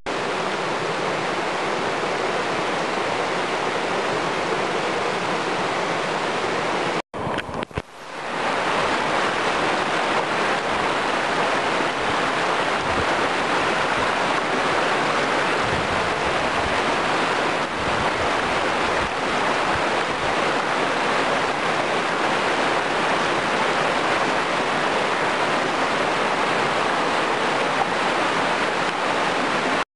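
Steady rushing of river water flowing through the cave entrance, an even hiss without a rhythm. It cuts out for a moment about seven seconds in and fades back up.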